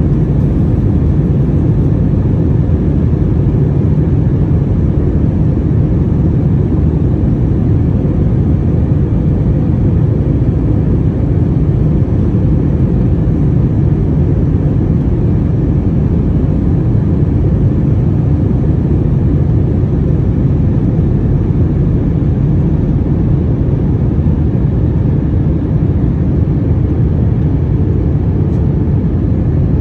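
Airbus A321-200 cabin noise: a loud, steady low roar of the engines and rushing air, with a faint steady hum.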